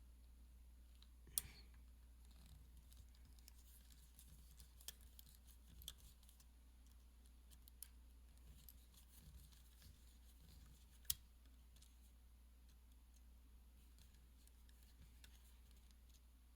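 Near silence broken by a few faint, sharp clicks of small metal watch parts and tools being handled while a mechanical watch is taken apart. Two clicks stand out, about one and a half seconds in and about eleven seconds in.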